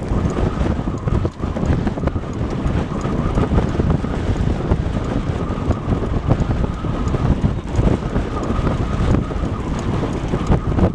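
Strong gusty wind buffeting the microphone, a loud rough rumble that flutters constantly, with a faint steady tone underneath.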